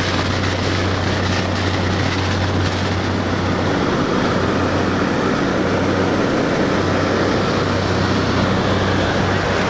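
Light single-engine propeller plane running at full power on its takeoff run: a steady, loud drone with a strong low hum under a rush of air noise.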